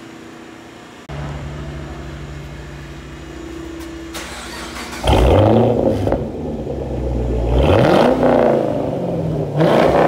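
2010 Chevy Camaro SS's 6.2-litre V8 idling through an exhaust with the stock catalytic converters, an X-pipe and the mid resonators and rear mufflers deleted, basically straight pipes. From about halfway on it is revved hard three times, each rev rising and falling back to idle.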